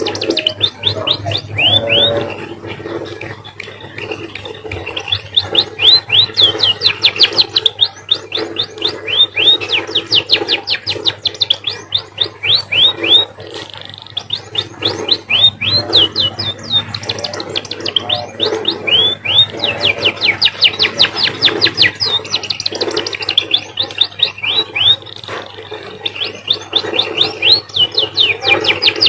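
An emprit (a small finch) singing a canary-like song: rapid trills of quick, sweeping chirp notes, delivered in phrases of a few seconds with brief pauses between them.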